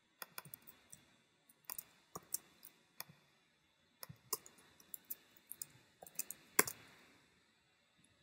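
Computer keyboard keys tapped in quick, irregular runs of clicks, with the odd mouse click among them; the loudest keystroke comes about six and a half seconds in, and the typing stops about a second later.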